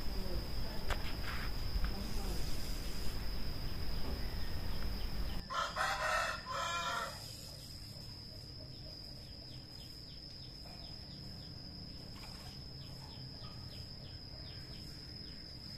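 A rooster crowing once, about six seconds in, over a faint steady high-pitched tone.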